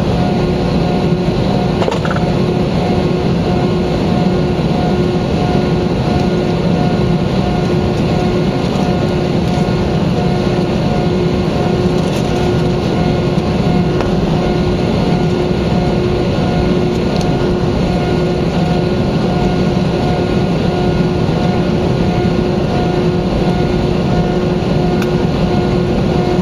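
Steady engine and airflow noise heard inside an Airbus A320neo cabin: a constant roar with a steady hum that neither rises nor falls.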